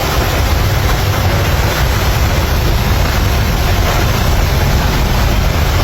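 Nissan Patrol's 3.0 L ZD30 diesel engine running with a steady, loud rumble. The mechanic says it misfires because its valves leak.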